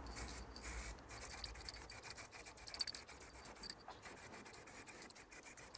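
Aerosol can of clear lacquer spraying onto steel horseshoes in short, faint bursts of hiss with brief pauses between them.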